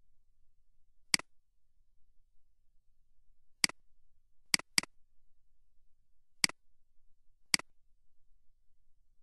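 Computer mouse clicking six times: single sharp clicks at uneven intervals, two of them in quick succession about halfway through, with near quiet between.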